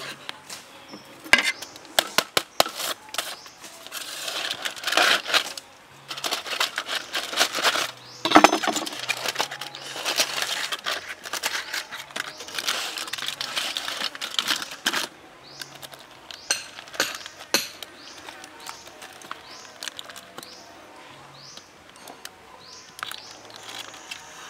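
Aluminium foil crinkling and tearing as a foil parcel of cooked shrimp is unwrapped by hand, a dense crackle through the first half that thins to a few scattered crackles.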